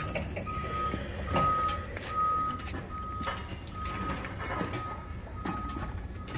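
A vehicle's reversing alarm beeping at an even pace, about one beep a second, over a low steady rumble.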